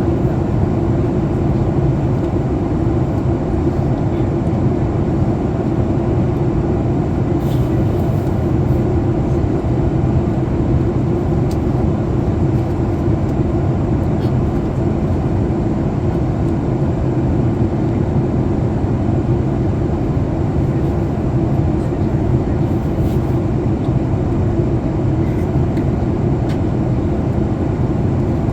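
Steady cabin noise of a Boeing 737 MAX 8 in descent: the CFM LEAP-1B engines' drone and the rush of airflow past the fuselage, an even low rumble with a steady hum.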